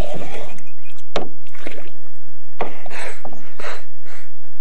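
Irregular knocks and bumps in a small fishing boat, about six in four seconds, the sharpest just over a second in and another near the middle.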